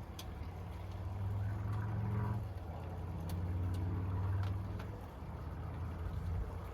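Power drill driving a screw to fasten a ceiling fan's light kit, running in two long pulls of the trigger with a low motor hum.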